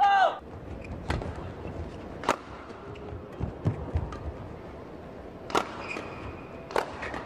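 A badminton doubles rally: sharp cracks of rackets hitting the shuttlecock every second or so, with a longer gap in the middle filled by softer thuds of footfalls. Shoe squeaks come off the court floor, the loudest a short falling squeak at the very start.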